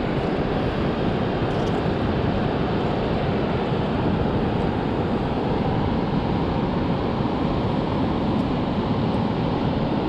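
Steady wind noise on the microphone mixed with the hiss of surf.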